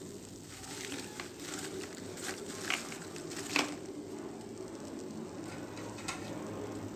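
Maida chips deep-frying in hot oil: a steady sizzle with crackling and a few sharp clicks.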